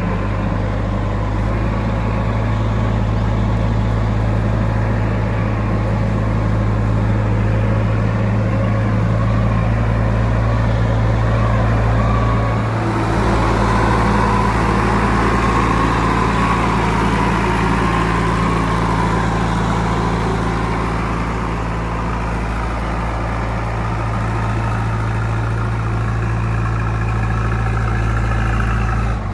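JCB 3DX backhoe loader's diesel engine running steadily. The note grows a little louder and busier around the middle.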